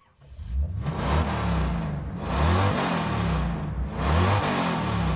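An engine revving up and down about four times, with a steady hiss running under it.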